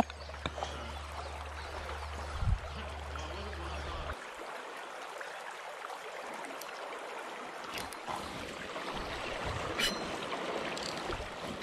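Creek water flowing and trickling steadily, with a low hum that stops about four seconds in and a single knock about two and a half seconds in.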